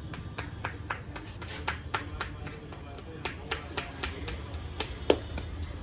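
A barber's hands tapping and slapping during a head massage: a run of quick, irregular hand strikes, a few a second, with one louder smack about five seconds in.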